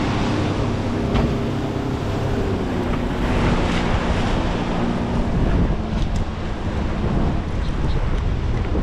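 Wind buffeting the microphone over breaking surf, with the steady hum of a fast boat's outboard motor going past, its pitch dropping as it moves away.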